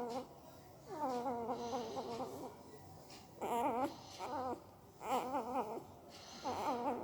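Newborn Indian pariah dog puppy whimpering in its sleep: about five short, wavering whines with quiet gaps between them, the first the longest.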